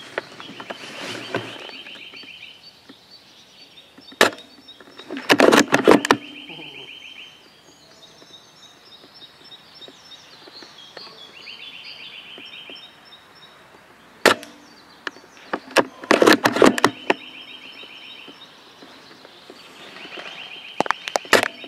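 Two shots from an L96-type spring bolt-action airsoft sniper rifle, each a single sharp crack, about ten seconds apart. About a second after each shot comes a louder cluster of clicks and clacks as the bolt is worked to cock the spring and chamber the next BB.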